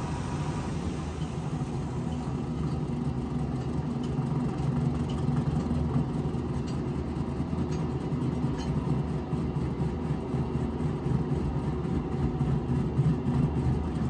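Engine running at a steady speed, getting a little louder about four seconds in.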